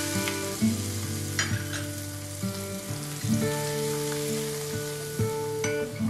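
Hot oil sizzling on spices and sauces in a bowl, with a spoon stirring and a few short clicks against the bowl. Gentle plucked acoustic guitar music plays over it.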